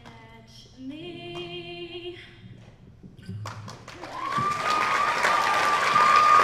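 A female singer holds the last sung note of a song. About three and a half seconds in, audience applause starts and grows louder, and a long high-pitched cheer from the crowd rides over it.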